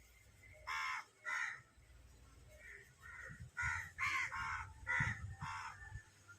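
A crow cawing repeatedly: two loud caws about a second in, a few softer calls, then a quick run of about five caws in the second half.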